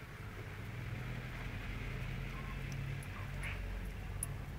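Dog licking an ice lolly, with a couple of short wet smacks about three seconds in, over a steady low hum and a rush of background noise that swells in the middle.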